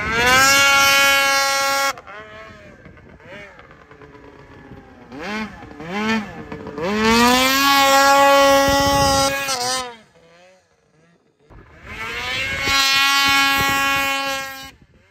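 Snowmobile engine revved hard in three long bursts as the sled is lifted into wheelies through powder. Each burst holds a steady high-pitched engine note. Between bursts the engine drops back to low running. The first burst cuts off suddenly about two seconds in, and the pitch climbs before the second burst levels off.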